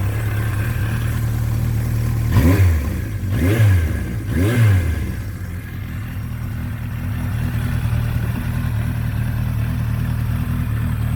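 1982 Suzuki GS1100E's air-cooled inline-four engine idling, its throttle blipped three times in quick succession a couple of seconds in, each rev rising and falling, before it settles back to a steady idle. The owner says it still needs a little tuning but runs really nice.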